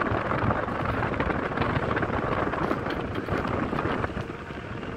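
Steady engine and road noise of a moving vehicle, heard from inside its cabin on a hill road, easing off slightly near the end.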